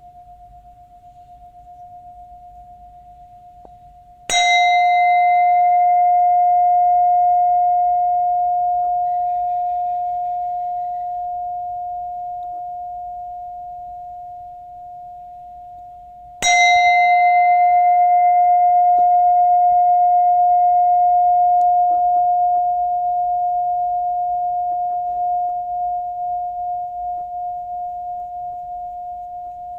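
Buddhist ritual bell struck twice, about twelve seconds apart. Each stroke rings one clear, steady tone with higher overtones that slowly fades, and the ring of an earlier strike is still dying away at the start.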